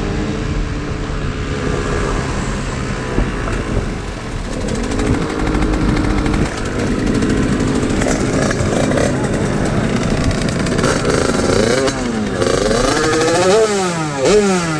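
Two-stroke motorbike engine running, with the revs rising and falling sharply several times near the end.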